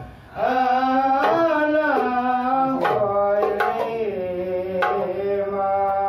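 Hadrah Ishari performance: sholawat sung in long, sliding melodic phrases over hand-struck frame drums (terbang). A brief pause in the voices at the start, then the singing resumes with drum strokes between the phrases.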